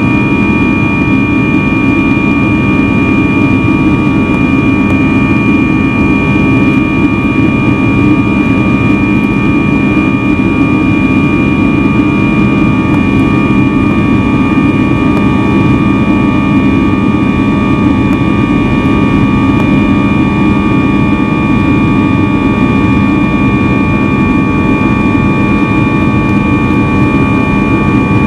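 Cabin noise of an Airbus A320 in flight, heard from a seat by the wing: its CFM56-5B turbofan engines and the rush of air make a loud, steady noise, with a steady high whine over it.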